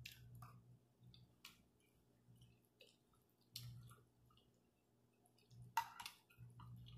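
Faint eating sounds: quiet chewing and a few sharp clicks of chopsticks against a glass dish, the loudest a double click about six seconds in.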